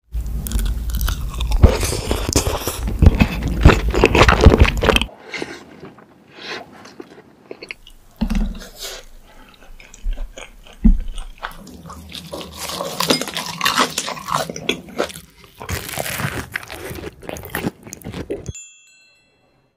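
Close-miked crunching and chewing of crispy fried food, loud and dense for the first five seconds, then quieter bites and chewing. The sound changes abruptly every few seconds and drops away about a second before the end.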